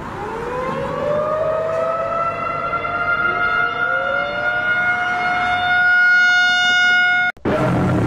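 Outdoor warning siren winding up, its wail rising in pitch and then holding steady, with a second rising tone joining partway through. It cuts off abruptly about seven seconds in, and a different low droning sound starts.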